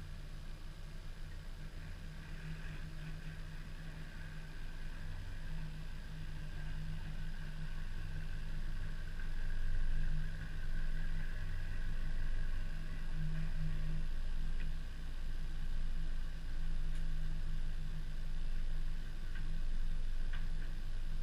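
Car engine running steadily with a low hum, growing louder over the first half and then holding.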